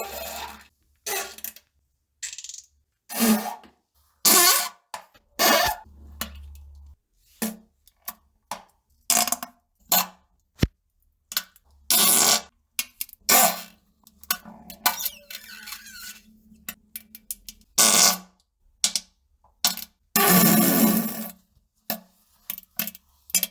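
A run of fart sounds, one after another: many separate short bursts and a few longer ones, with sudden starts and stops and brief silences between. The longest, lasting over a second, comes near the end.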